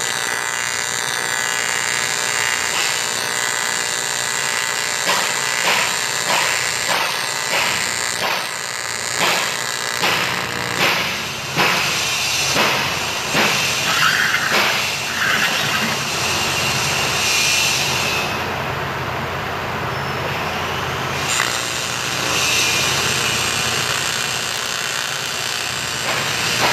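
AC TIG welding arc buzzing on aluminium. In the middle comes a run of scraping strokes, about one a second, as an aluminium piece is rubbed back and forth on the steel welding table.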